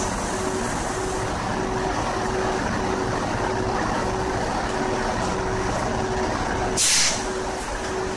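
Steady machinery hum of a standing EF81 electric locomotive and 24-series sleeper coaches, with a tone pulsing a little under twice a second. About seven seconds in, a short, loud burst of compressed air hisses out at the coupling as the brake air hose is worked during the locomotive change.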